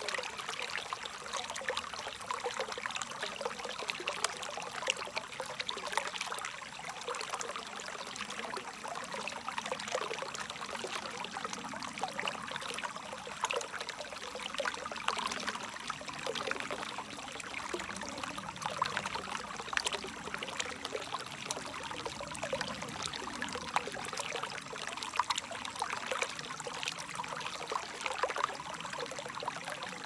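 Shallow rocky stream running over a low stone ledge in a small cascade: a steady trickling rush of water with many small splashes.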